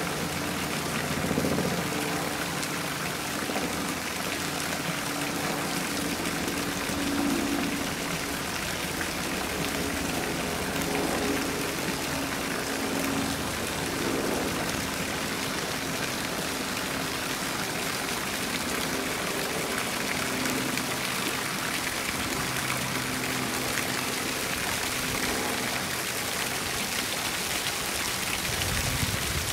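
Steady rush and splash of water spilling into a small rock-edged pond, with soft sustained low tones underneath that change every few seconds.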